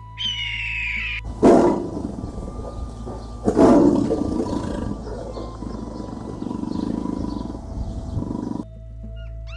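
A lion roaring twice, about two seconds apart, each roar trailing off into rumbling grunts, over background music. A short whistled call ends the first second, and the roaring cuts off abruptly near the end.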